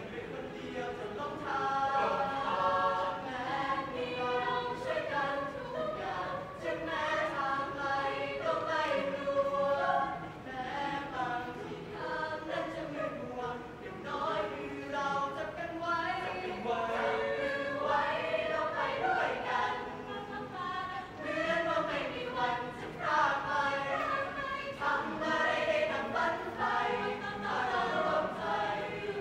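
A student choir of mixed voices singing a song in several parts.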